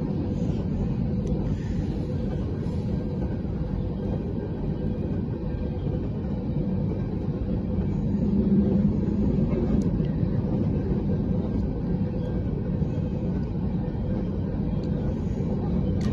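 Freight train of covered hopper cars rolling past at a level crossing, its wheels making a steady rumble on the rails, heard from inside a car.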